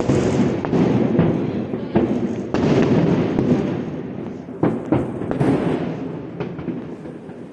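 Aerial fireworks display: a series of sharp bangs from bursting shells over a continuous rumble. The sound dies down toward the end.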